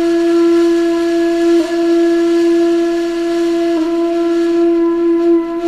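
Music: a breathy, flute-like wind instrument holds one long low note, briefly re-articulated twice. It is the Egyptian-style tune of the cat trend's sound, meant to evoke ancient Egypt.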